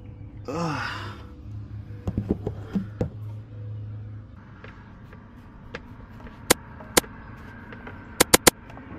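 Hand tools clicking and tapping sharply against metal while working the stuck oil filter on the underside of a car, in short irregular clicks with a quick run of four near the end. A steady low hum runs underneath and stops about four seconds in, and a short falling tone sounds near the start.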